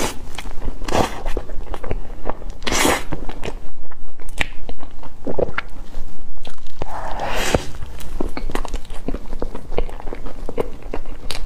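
Close-miked ASMR eating of a soft, cream-layered crepe cake: wet bites, chewing and lip smacking, with many small sticky clicks from the mouth and a couple of louder squishy bites.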